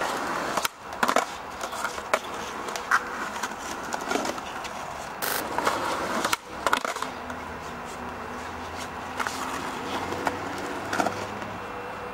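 Skateboard rolling over rough, patched concrete, a steady grinding of the wheels. It is broken several times by sharp clacks and slaps as the board is popped and landed in flatground tricks.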